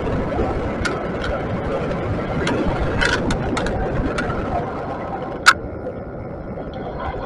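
Riding noise picked up by an action camera mounted on a moving e-bike: a steady rumble of wind and road, with scattered sharp clicks and knocks from the bike and mount. One knock about five and a half seconds in is much louder than the rest.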